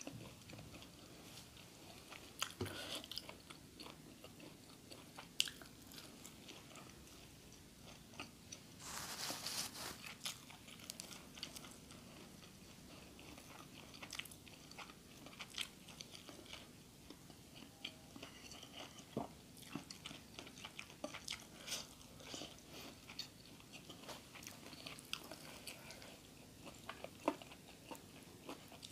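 Close-miked eating sounds: chewing and crunching of food, with scattered small clicks and crackles and a brief louder noisy burst about nine seconds in.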